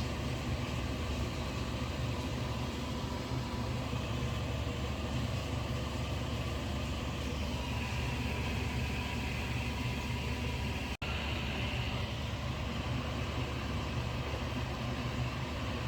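Steady low mechanical hum of a running motor, unchanging throughout, with a sudden brief dropout about eleven seconds in.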